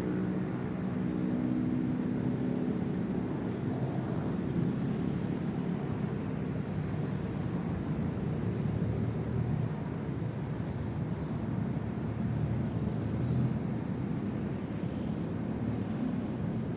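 Train running slowly: a steady low rumble with a faint engine hum and no sudden sounds.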